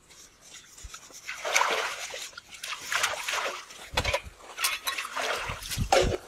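Water splashing and sloshing in irregular bursts as dishes and vegetables are washed by hand in a shallow pool, with a few dull knocks.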